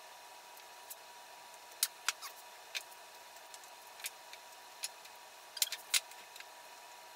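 Scattered light clicks and taps of hands handling blue painter's tape and wooden rails on a workbench, about a dozen spread irregularly, over a steady hiss with a faint steady tone.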